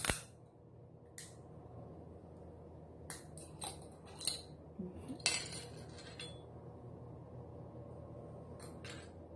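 Tableware and glass clinking and clattering as they are handled: a sharp clink at the start, another about a second in, a cluster of clinks and a short rattle a few seconds later, and two light clicks near the end.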